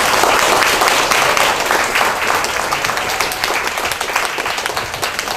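Small seated audience applauding, a dense patter of hand clapping that eases off gradually.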